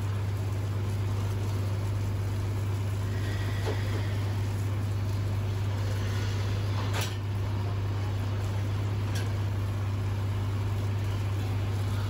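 Steady low drone of a large livestock truck's engine idling, with a few sharp clicks and knocks of metal, the loudest about seven seconds in.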